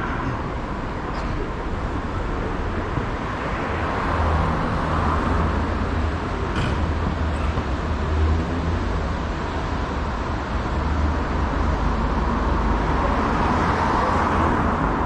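City street traffic at night: cars driving by on the road, with a low engine hum through the middle and a car passing close near the end.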